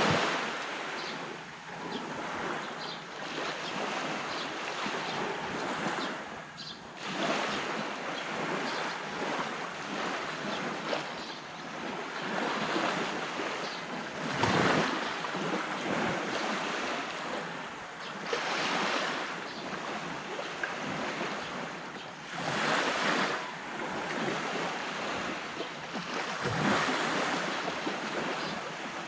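Sea waves breaking on a beach shore, a continuous wash that swells with each incoming wave every few seconds.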